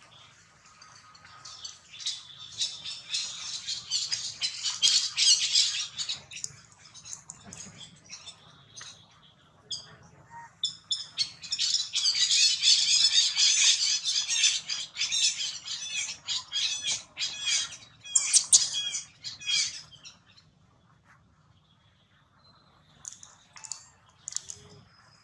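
Rapid, high-pitched animal calls in two long bouts of shrill chattering, with a lull between them and near quiet toward the end.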